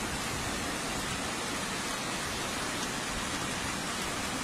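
Steady rush of river water, an even noise with no breaks.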